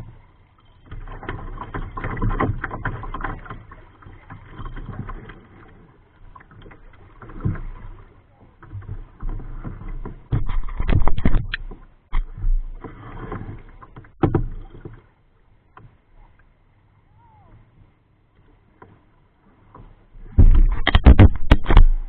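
Water sloshing and knocking against the hull of a Sun Dolphin kayak, picked up by a camera mounted on its bow, in irregular spells with the loudest flurry of knocks near the end.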